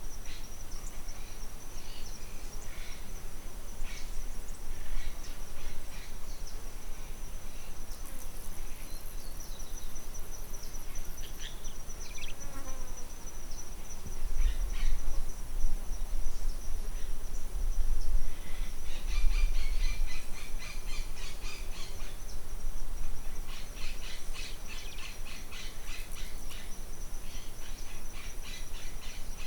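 Outdoor ambience of a steady, high-pitched insect chorus with scattered bird chirps. Rapid trills come in about two-thirds of the way through, and gusts of wind rumble on the microphone in the middle.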